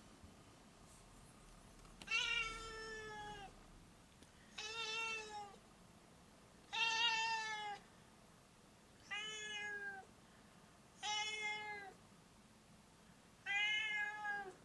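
Domestic cat meowing six times, each meow about a second long with a slight drop in pitch at the end, spaced a couple of seconds apart. These are the repeated calls of a cat that the owner takes as wanting to be let outside.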